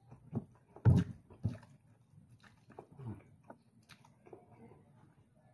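Close-up eating sounds: wet chewing and lip smacking on a mouthful of rice and vermicelli noodles eaten by hand. There are a few louder short smacks just under a second in and again about half a second later.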